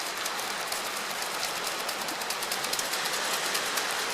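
Steady patter of light rain, a continuous hiss made of many fine drops.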